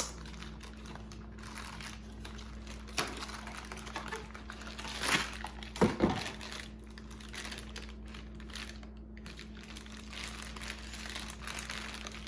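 Plastic blind-box bag crinkling and rustling as it is opened, with a few louder crackles about halfway through.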